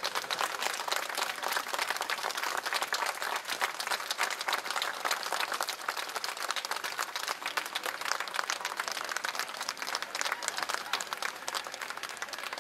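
Crowd applauding, a dense steady clapping that eases off slightly near the end.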